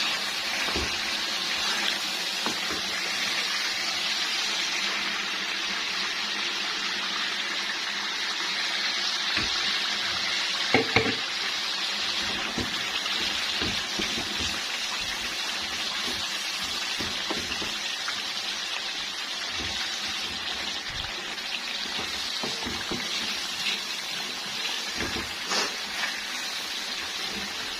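Chicken qorma sizzling steadily as it fries in its oil in the pot, with a few short knocks of a utensil against the pot.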